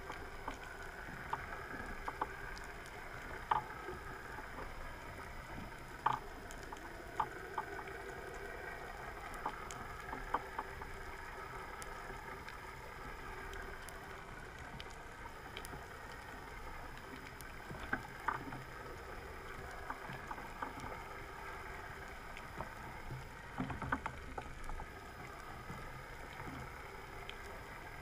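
Underwater sound picked up through a camera housing: a steady drone and hiss with a faintly wavering pitch, broken by scattered sharp clicks at irregular intervals.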